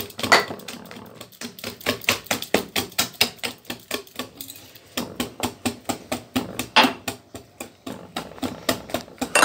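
Hand wire whisk beating a runny cake batter in a glass bowl, its wires clicking against the glass in a fast steady rhythm of about four to five strokes a second, with a short break about four seconds in.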